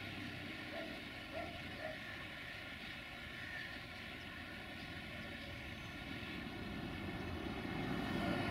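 The Sulzer diesel engine of a 060-DA (LDE2100) diesel-electric locomotive, heard from a distance as a steady drone that grows louder near the end.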